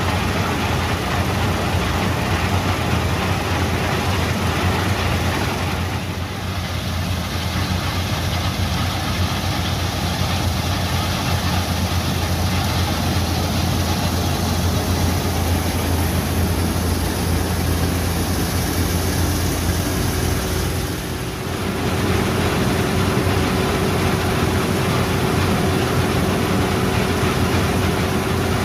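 Deutz-Fahr M 2385 combine harvester running steadily: a strong low engine hum under a dense mechanical rush. It dips briefly twice, about six and twenty-one seconds in.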